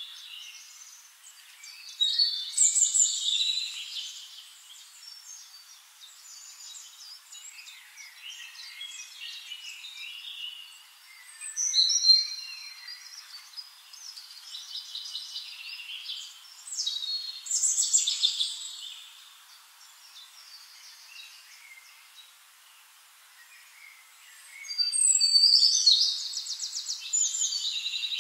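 Wild birds calling and singing: high chirps and fast trilling calls in several loud bursts a few seconds apart, the longest near the end. The sound is thin, with no low end at all.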